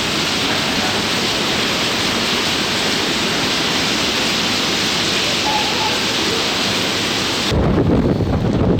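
Steady rushing hiss of a tropical storm's rain and surf. About seven and a half seconds in it changes abruptly to gusty wind buffeting the microphone with a low rumble.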